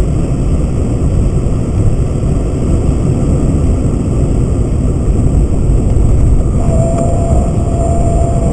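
Car driving on an open road, heard from inside the cabin: a steady low rumble of engine and tyres. About two-thirds of the way in, a steady thin whine joins it.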